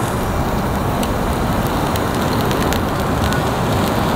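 Lump charcoal fire burning in a portable grill, giving small sharp crackles over a steady rushing noise with a heavy low rumble.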